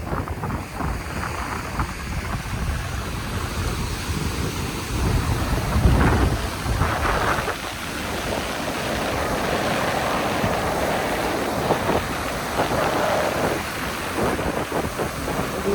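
Wind buffeting the microphone over the steady wash of surf breaking on a beach, with a few stronger gusts or wave surges about six seconds in.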